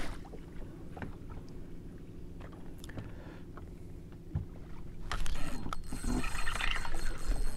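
Fishing boat on open water: a steady low hum with a few faint ticks, growing louder and noisier about five seconds in.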